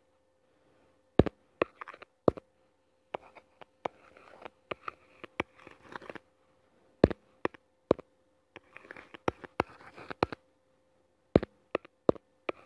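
Sharp taps and scratchy strokes of handwriting on a touchscreen, irregular and close to the microphone, over a faint steady hum.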